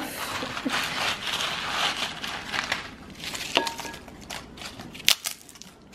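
Crisp pita chips being crushed by hand and scattered onto a fattoush salad: a dense crackling crunch that thins out in the second half, with one sharp snap near the end.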